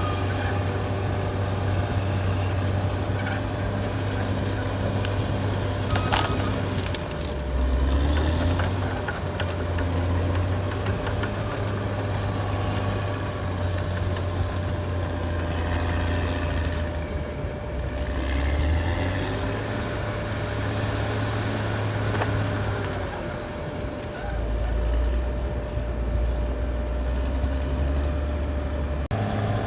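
Caterpillar D6R XL bulldozer's diesel engine running, its note dropping lower and coming back up several times. There is a single sharp knock about six seconds in.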